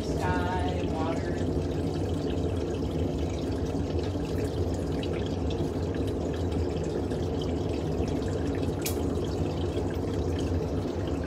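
Portable mini glass furnace's burner flame running steadily: a constant rushing noise with a low hum beneath it. A single sharp click comes near the end.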